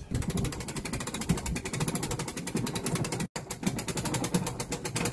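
Post-mounted winch ratcheting with a rapid, even clicking as it hoists a heavy wild hog carcass on a gambrel, with the sound cutting out briefly just past three seconds.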